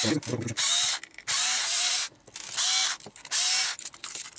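Cordless electric screwdriver running in four short bursts, backing self-tapping screws out of an e-bike motor controller's aluminium case.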